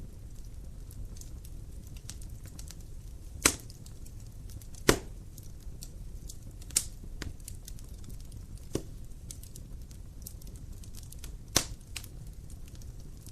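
Wood fire in a fireplace crackling, with a steady low flame rumble under many small ticks and five sharp pops spread through it.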